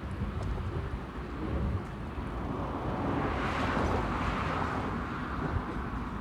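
Road traffic rumbling steadily, with one vehicle passing by: its noise swells about halfway through and then fades.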